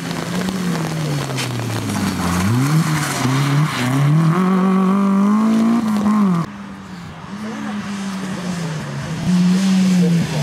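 Peugeot 106 rally car engine revving hard. The pitch falls as it lifts off about two seconds in, then climbs in steps through gear changes, and the sound drops away suddenly about six and a half seconds in. Near the end a second rally car's engine comes in louder.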